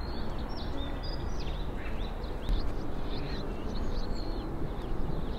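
Outdoor spring ambience: several small birds chirping with short calls that rise and fall in pitch, over a steady low rumble.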